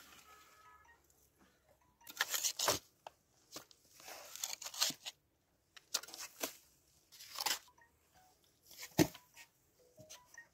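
Irregular crunching and scraping of stone and gravel in short bursts about a second or two apart, the loudest with a thud about nine seconds in.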